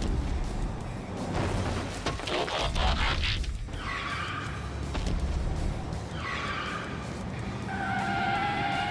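Dubbed fight sound effects over background music: a noisy scraping rush, then several high screeches that fall slightly in pitch, like metal or tyres scraping.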